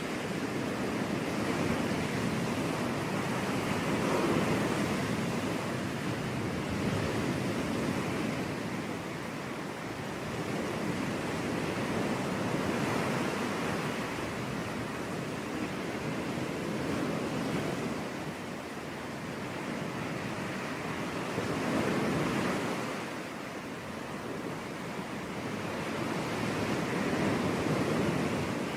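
Waves breaking and washing up on a beach, a continuous surf that swells and eases every several seconds.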